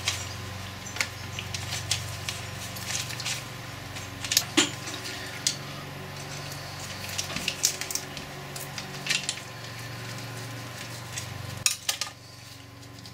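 Cast-iron and steel parts of a Boxford lathe apron clinking and clicking irregularly as a shaft and gears are fitted into the housing by hand, over a steady low hum.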